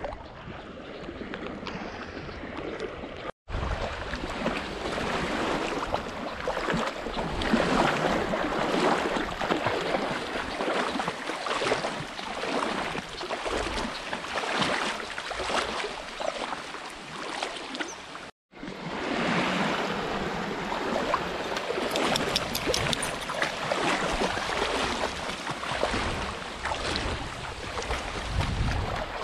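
Lake water splashing and sloshing right against a waterproof camera held at the surface, a dense crackly rush of small splashes. The sound cuts out briefly twice.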